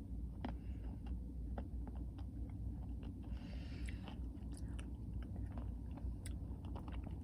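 Close-up chewing of ice cream with crunchy toffee and cookie pieces: scattered small crunches and clicks, with a brief hissy stretch a little past three seconds.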